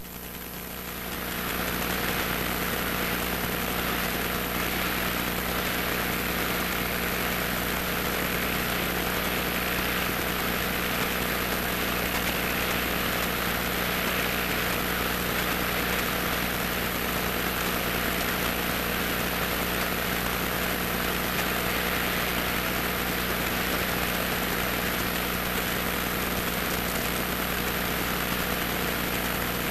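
Cessna 150's four-cylinder engine and propeller running steadily at low taxi power, heard from inside the cockpit as a steady drone with a hiss over it. It swells up over the first second or two, then holds level.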